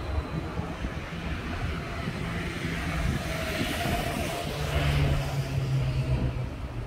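City street traffic: a steady low rumble, with a motor vehicle passing that swells about halfway through and fades toward the end.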